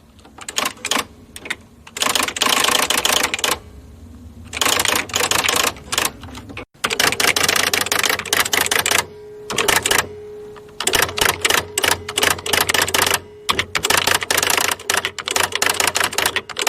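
Electric typewriter being typed on: quick runs of key strikes broken by short pauses, over the steady hum of its running motor.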